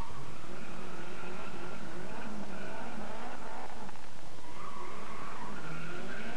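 Competition car's engine revving hard through a cone slalom, its pitch rising and falling with the throttle and dipping briefly about four and a half seconds in before climbing again.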